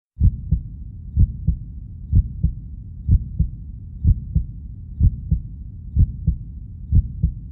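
Slow heartbeat sound effect on an intro soundtrack: a low double thump about once a second over a steady low rumble.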